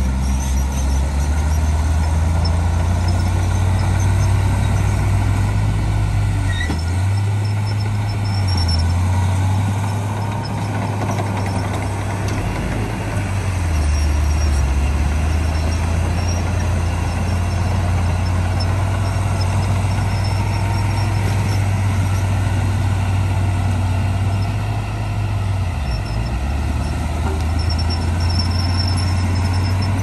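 Heavy diesel engine of earthmoving machinery running steadily under load, its pitch dropping and rising again a few times as it works.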